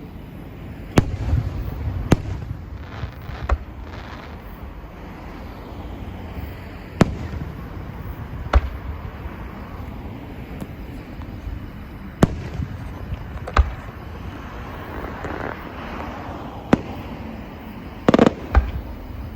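Fireworks bursting overhead: about ten sharp bangs at uneven spacing, one to several seconds apart, some followed by a low rumble, with a quick cluster of bangs near the end.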